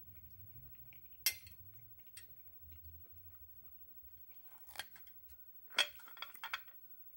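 Quiet chewing of food with the mouth closed. A single sharp click comes about a second in, and a quick run of sharper clicks and clatters comes near the end.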